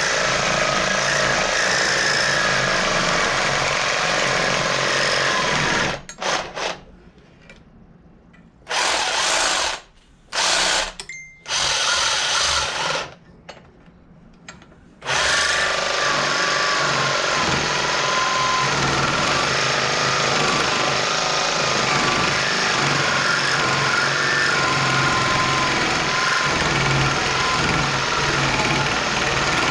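Cordless reciprocating saw cutting into a steel pedal bush clamped in a vise, slotting it to free it from the shaft. It runs steadily for about six seconds, stops, starts and stops in several short bursts, then runs steadily again from about halfway through.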